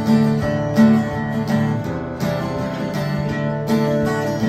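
Acoustic guitars playing a strummed chord passage, with no singing.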